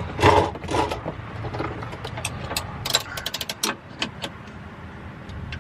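A socket ratchet clicking in short quick runs, with metal tool clinks, as a driveshaft bolt is turned; a voice is heard briefly at the start.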